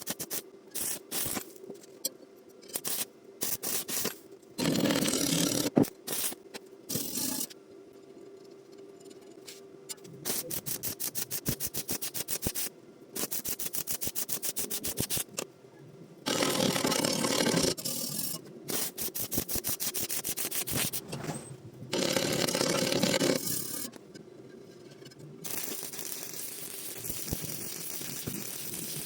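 Metalwork on steel angle iron, consistent with stick welding. Several one-to-two-second bursts of noisy crackle alternate with long runs of rapid scraping strokes, over a faint steady hum.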